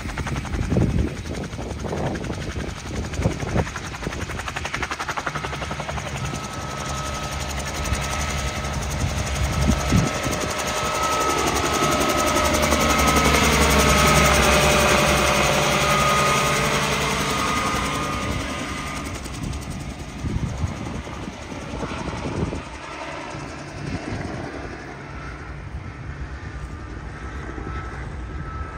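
Bell 47 piston-engine helicopter flying low past. Its engine and rotor grow louder, are loudest about halfway through as it passes overhead, then fade as it flies away.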